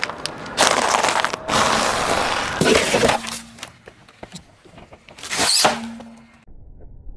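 Car tyre rolling over and crushing plastic jelly cups, with loud cracking and crackling in long bursts. After a cut, shorter crunches and crinkles come as it flattens a cardboard box and foil wrapping.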